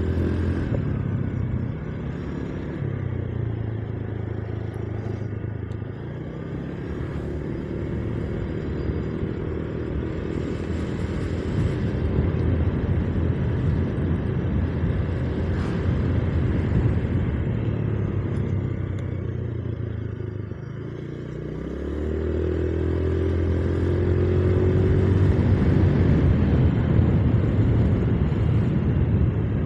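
Motorcycle engine running while being ridden, a steady hum with road noise; the engine eases off about twenty seconds in, then rises again as the bike picks up speed.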